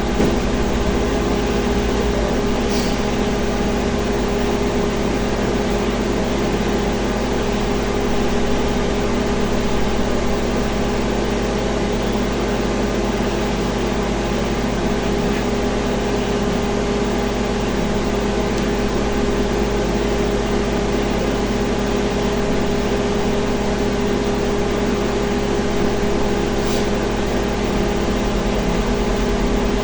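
LG MS2355R microwave oven running a heating cycle, a steady hum from its high-voltage transformer and fan. The transformer is now switching on and heating water, so the fault where it would not energize is repaired.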